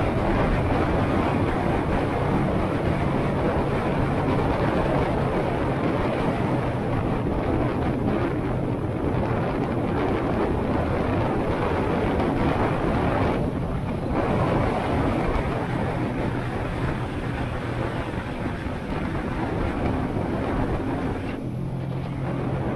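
Honda Shadow 125's small V-twin engine running while riding at road speed, mixed with steady wind rush on the microphone. The sound eases briefly about thirteen seconds in and again near the end, where the engine note changes.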